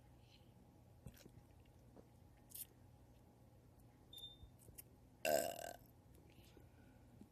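A woman lets out one loud, short burp about five seconds in, lasting about half a second. A few faint clicks come before it.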